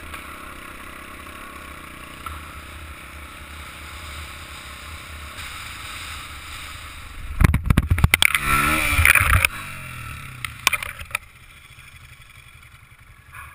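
Off-road trail motorcycle engine running as it is ridden, then about seven seconds in a burst of loud knocks and clatter as the bike crashes and goes down, with the engine note falling away. A few more knocks follow, then it goes much quieter.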